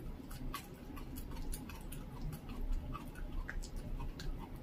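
Dachshund chewing and tearing at a whole raw duck carcass: irregular crunching clicks of its teeth on the meat and bones, several a second.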